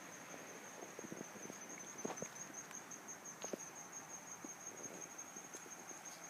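Insects trilling in a steady, high, finely pulsing chorus, with scattered light crackles of footsteps on twigs and leaf litter.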